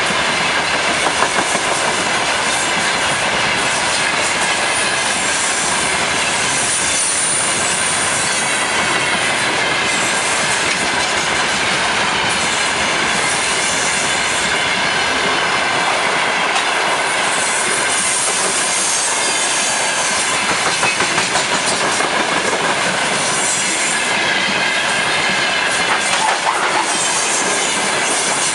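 Freight train's gondola wagons rolling past at speed: a steady, loud rumble and rattle of steel wheels on the rails, with a high metallic squeal coming and going.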